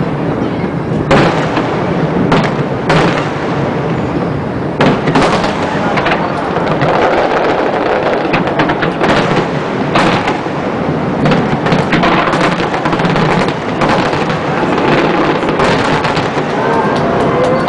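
Aerial fireworks shells bursting in a dense barrage: many loud bangs in quick succession over continuous crackling.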